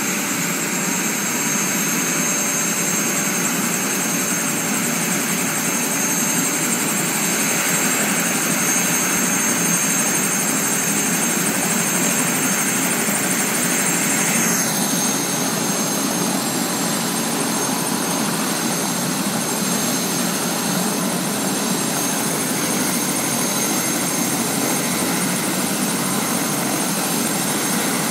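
Light turbine helicopter running on the ground with its rotor turning: a steady engine and rotor noise with a thin high turbine whine over it. The hissy upper part eases a little about halfway through.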